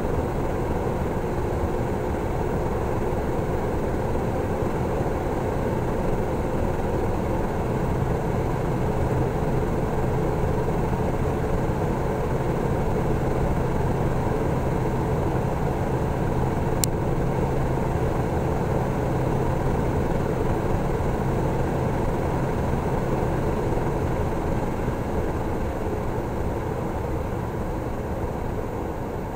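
Mercedes Sprinter 319 CDI's 3.0 V6 diesel heard from inside the cab, pulling hard at high speed around 150–160 km/h: a steady low engine drone mixed with road and wind noise, easing off slightly near the end.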